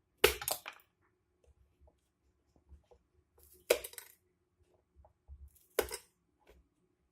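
Three short clinking clatters of hard parts being handled and knocked together as a kettle is taken apart, the first the loudest, with faint small knocks in between.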